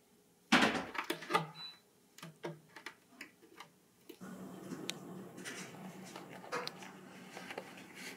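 Knocks, clicks and scuffs from a cat pawing its toys and rolling on a woven rug, starting with one sharp knock about half a second in. From about four seconds a steady low hum runs underneath the scattered clicks.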